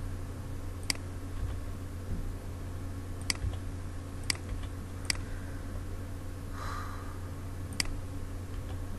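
About five sharp, separate clicks of a computer mouse and keyboard over a steady low hum, with a brief soft rustle about seven seconds in.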